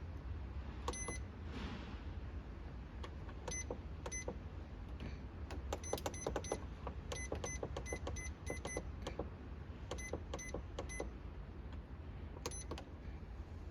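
Short electronic beeps from the control panel of a Liebherr under-bench fridge as its buttons are pressed, each beep on the same pitch with a click. They come singly at first, then in quick runs. A steady low hum runs underneath.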